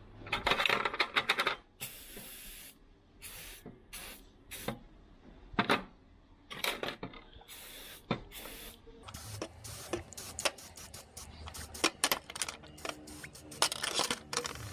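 WD-40 aerosol sprayed in many short bursts, one held for nearly a second, to clean the parts of an automatic freewheeling hub, with small clicks and knocks between bursts.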